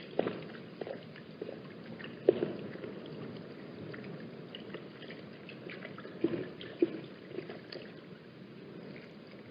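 Irregular drips and small water splashes, the loudest about two seconds in and near six and seven seconds, over steady wind noise.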